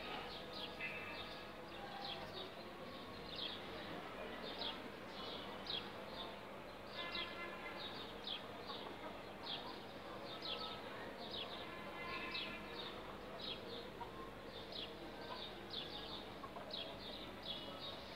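Small birds chirping busily: short, high, falling chirps come several times a second. A faint steady hum runs underneath.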